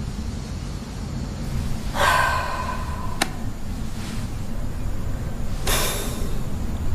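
A woman breathing audibly, with two breathy sighs about two and six seconds in, over a low steady hum. A single sharp click comes a little after three seconds.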